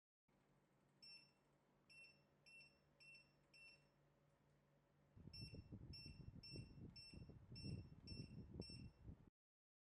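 Short high electronic beeps from an instant water heater's digital control panel, about five in the first four seconds and about seven more after that, as of buttons being pressed. A low rumbling noise joins the beeps about five seconds in, and everything cuts off suddenly near the end.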